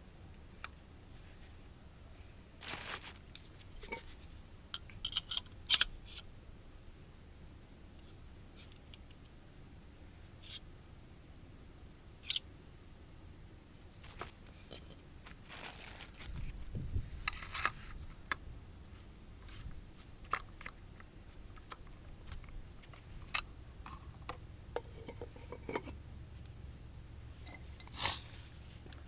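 Scattered clicks, scrapes and rustles of hands handling and working on parts, over a low steady rumble.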